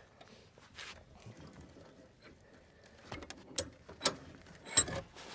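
Scattered faint creaks and sharp clicks from a hitch vise's jaws biting into a clamped 2x4 under heavy leverage, the wood giving way; the sharpest click comes near the end.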